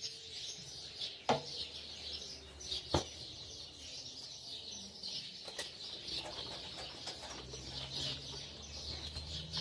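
Many small birds chirping and singing at once in a continuous chorus. A few sharp knocks stand out above it, about one, three and five and a half seconds in.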